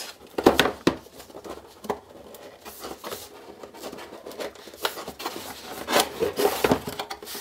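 Hands handling a cardboard motherboard box: a few sharp knocks as it is set down and turned, then cardboard rubbing and sliding as the lid is lifted open near the end.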